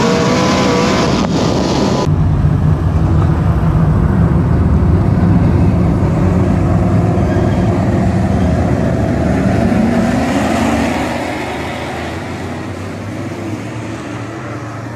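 A super stock race car's engine heard from inside the cockpit, its pitch rising and falling, then an abrupt change about two seconds in to the field of super stock dirt-track cars running past as one loud, low engine rumble that fades over the last few seconds.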